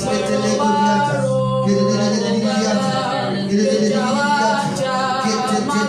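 Soft worship music: voices singing over a steady held low chord.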